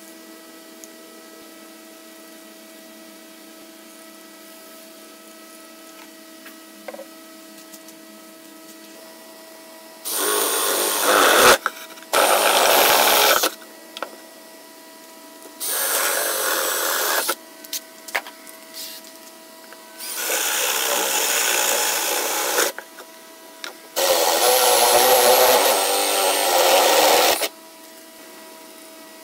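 Power drill boring holes through pallet-wood boards, in five runs of one and a half to three and a half seconds each, beginning about ten seconds in. Before it, only a faint steady hum.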